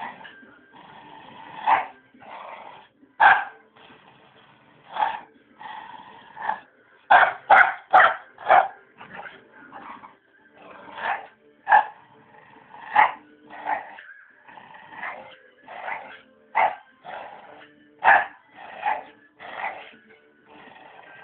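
A frustrated dog barking in short, sharp barks about once a second, with a quick run of four or five in a row about a third of the way through, and quieter growling and whining between them.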